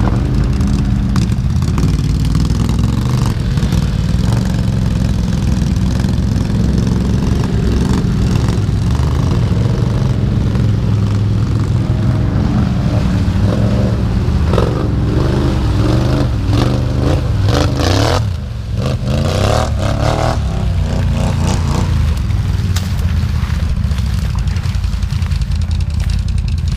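ATV engine running under way, with heavy wind rumble on the microphone. The engine revs rise and fall several times around the middle.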